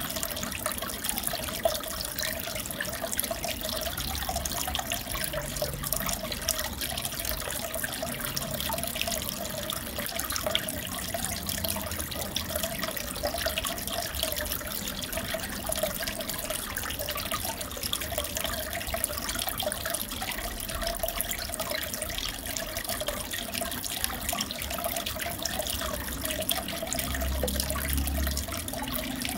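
Steady trickling and bubbling of aquarium water, with many fine bubbly ticks over it and a faint wavering hum in the middle pitches.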